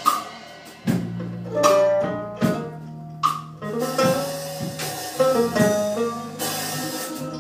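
Live instrumental music: a mandolin and an acoustic guitar playing together, with sharp percussive hits every second or so.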